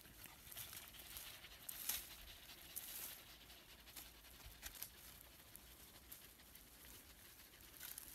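Dogs panting faintly while resting on dry leaf litter, with scattered light crackles and clicks.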